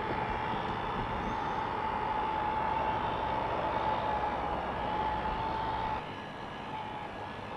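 Nitro Z21 RC bass boat's motor running with a steady high whine over a steady rushing noise as the boat trolls slowly across the water. About six seconds in the sound drops in level.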